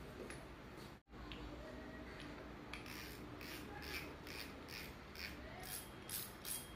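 Spinning reel being handled and fitted back together by hand: a run of faint, short rasping scrapes, about two a second, coming quicker near the end.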